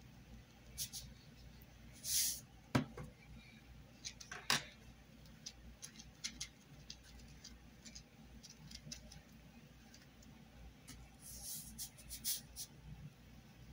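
Handling noises: scattered soft clicks and taps of a plastic shaker bottle and a silicone mould on a desk, with a few short hissing shakes as the bottle is shaken over the mould, a brief one about two seconds in and a cluster near the end.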